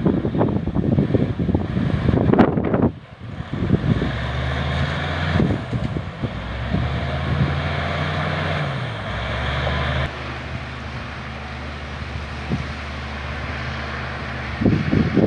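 LiuGong bulldozer's diesel engine running steadily; its pitch dips briefly about nine seconds in, then holds. Wind buffets the microphone for the first three seconds and again near the end.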